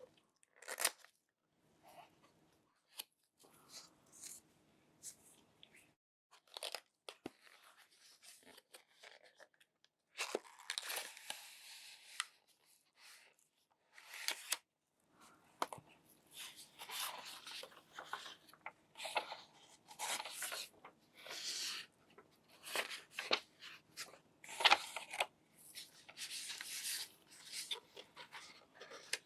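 Packaging being handled and torn open: irregular tearing and crinkling, with longer tearing strokes about a third of the way in and again near the end.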